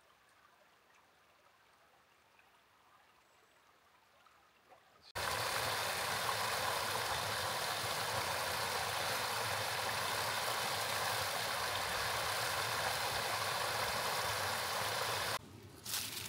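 Near silence for about five seconds, then the steady rush of flowing river or creek water cuts in abruptly. It runs for about ten seconds and cuts off suddenly near the end.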